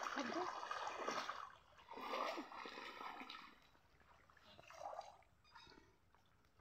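Shallow water splashing and sloshing quietly in irregular bursts as people wade and feel about underwater with their hands for fish, dying away with short quiet gaps toward the end.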